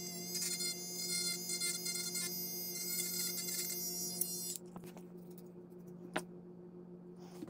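Small cordless rotary tool running at speed with a steady high whine, its bit working on a plastic model engine part in short passes. It switches off about four and a half seconds in, and a single sharp click follows a little later. A low steady hum continues underneath.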